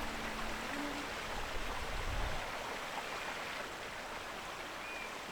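Small mountain stream running steadily over stones, a constant rushing hiss of water. A low rumble underlies it for the first two seconds, then stops.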